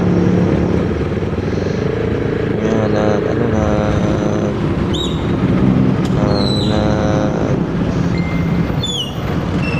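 A group of motorcycle engines idling and running together, a steady dense engine noise, with a few short high-pitched chirps about halfway through and near the end.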